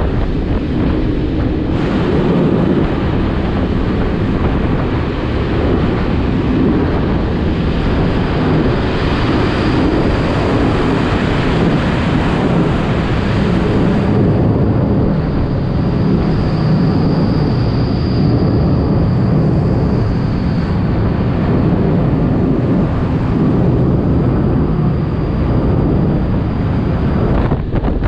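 Wind buffeting the microphone over the steady rumble of a moving vehicle. A faint high whine runs through the second half.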